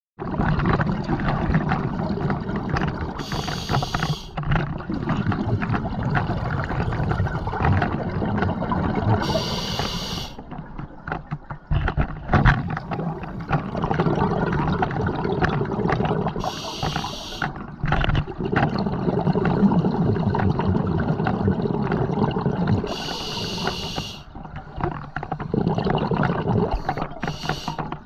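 Scuba diver breathing on a regulator, heard underwater: a short hissing inhale about every six seconds, five times, each followed by a long bubbling exhale.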